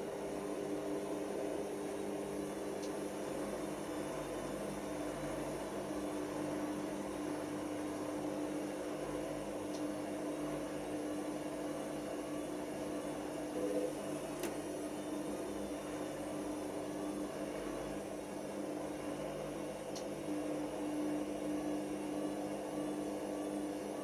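Hoover Nextra HNL6166 front-loading washing machine running steadily partway through a 90 °C cotton cycle, its drum motor humming with a few faint ticks.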